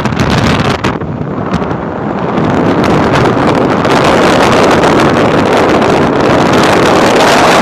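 Strong wind buffeting the microphone, gusting louder from about two seconds in, over the low steady drone of a car ferry's engine.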